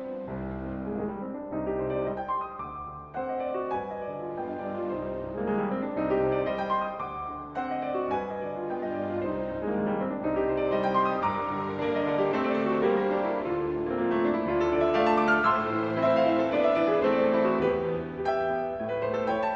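Background piano music, slow and steady, with notes changing every half second or so.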